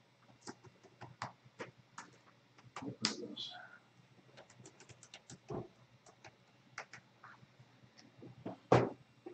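Typing on a computer keyboard: irregular key clicks in short runs, with a louder knock near the end.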